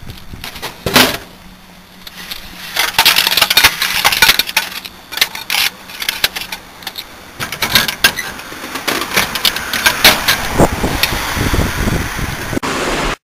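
Clicks, clunks and rattles of a drinks vending machine being worked by hand as a bottled drink is bought and taken out, with one sharp knock about a second in and a busy run of clattering through the middle.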